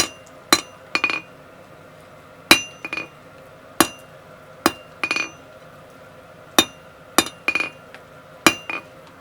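Blacksmith's hand hammer striking hot steel on an anvil while dressing the faces of a forged hexagonal blob on a round bar. About a dozen sharp, ringing blows come in an uneven rhythm, several followed quickly by a lighter second tap.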